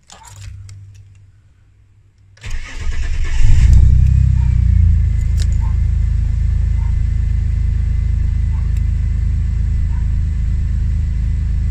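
Ford AU Falcon engine cranking and catching about two and a half seconds in, flaring up briefly, then settling into a steady idle. It starts and keeps running, a sign that the reworked body control module still lets the immobiliser pass.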